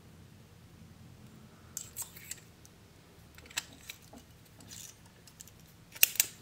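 Small metal clicks and scrapes from a stainless steel Parker Jotter ballpoint pen being reassembled: the refill going back in and the steel barrel screwed together. A sharper click comes near the end.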